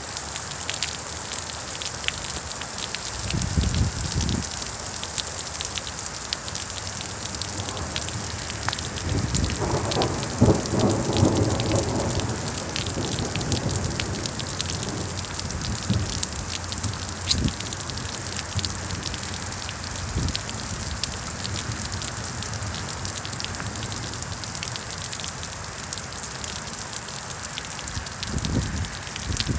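Heavy rain falling hard, a dense steady patter of drops. Low rumbles of thunder swell about 3 seconds and 10 seconds in, and again near the end.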